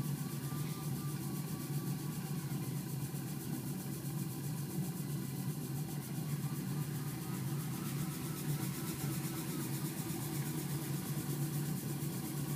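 Home-built copper aeolipile running: the sphere spins fast on its bearings as steam jets from its bent nozzles, heated by a gas torch flame beneath. It makes a steady hum with a hiss and a faint wavering whine.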